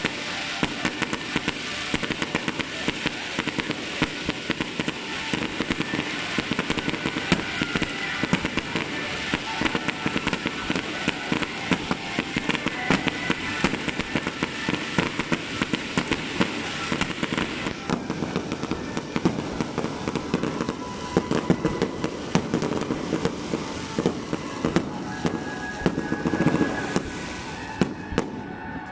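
Fireworks display going off: a dense, continuous run of crackling pops and bangs, several a second, from shells bursting in quick succession.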